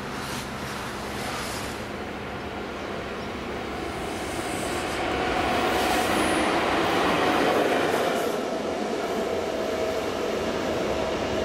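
Diesel locomotive running light, approaching and passing close by with a steady engine hum and wheel-on-rail noise; it is loudest about six to eight seconds in, then fades as it moves away.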